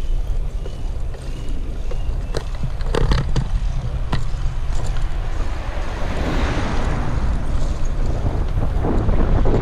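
Wind buffeting the microphone of a camera on a moving bicycle, with low road rumble and a few sharp knocks about three and four seconds in. The hiss swells from about six seconds on.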